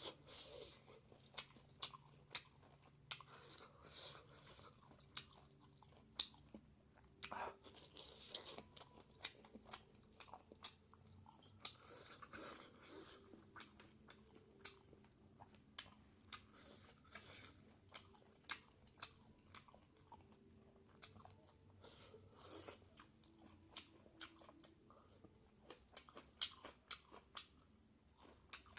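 Close-up eating sounds: a person chewing and biting into pork and bamboo shoot curry, with many irregular sharp crunches and wet mouth clicks and a few longer smacking or slurping sounds.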